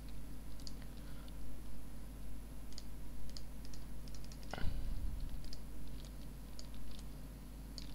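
Scattered clicks of a computer mouse and keyboard at a desk as the user tries to get a stuck dialog to respond, with one louder thump about halfway through. A steady low hum runs underneath.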